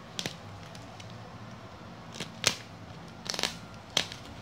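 Plastic parcel wrapping and packing tape being cut and torn open by hand: a few short crackling rips, the loudest about halfway through and a quick run of them near the end.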